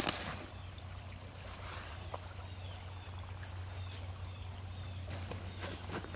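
Quiet outdoor ambience: a steady low hum under a faint hiss. Faint short chirps come in the middle, and a few soft clicks come near the start and near the end.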